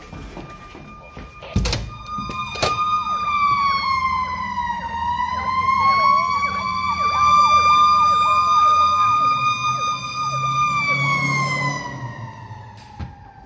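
Fire engine sirens passing: a loud, steady wailing tone that dips and rises slowly, with a quicker yelping siren swooping about twice a second over it. Near the end the main tone slides steadily down as the truck goes by, with its engine rumbling. There is a sharp thump and a knock about two seconds in.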